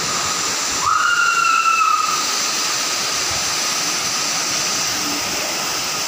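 Steady rushing roar of a waterfall. About a second in, a single high whistle sounds for about a second, sliding up at its start and then easing slightly down.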